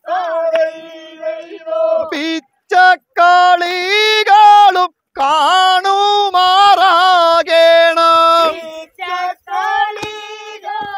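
A single high voice singing a Malayalam devotional boat song (vanchipattu), with long held, wavering notes broken by short pauses and a run of shorter notes near the end.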